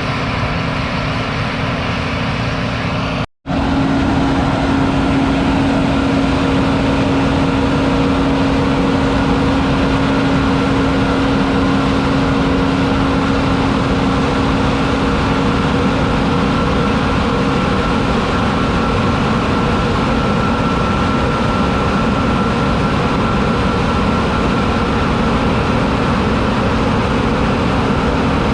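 John Deere 9780i CTS combine harvester's 8.1-litre six-cylinder diesel running steadily with a constant hum, broken by a brief dropout about three seconds in.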